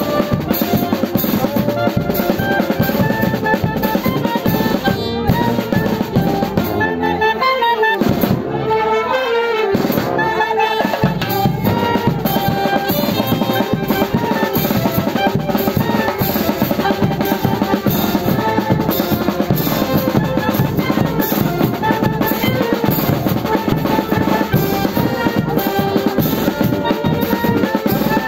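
Live street band of brass and drums playing a lively, steady-beat dance tune. The drums drop back for a couple of seconds about eight seconds in, then the full beat returns.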